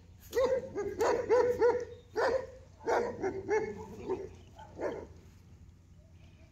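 A dog barking repeatedly in quick runs of two or three barks, stopping about five seconds in.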